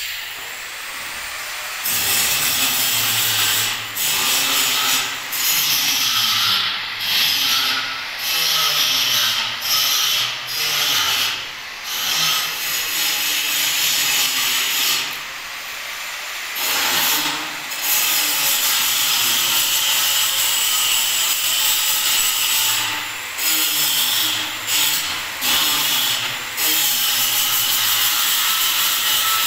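Power tool working on material. It runs loud in long spells from about two seconds in, with many short dips and pauses between them.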